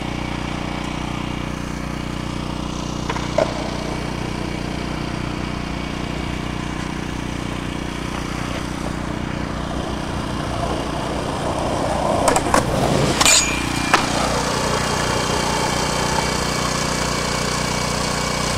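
A small engine running steadily, a constant motor drone. A few sharp clicks and knocks come about twelve to fourteen seconds in.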